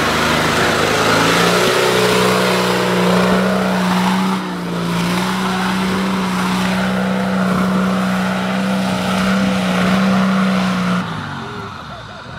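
Toyota Land Cruiser HDJ80's 4.2-litre straight-six turbodiesel held at high, steady revs under load while it climbs a muddy slope. The revs drop away near the end.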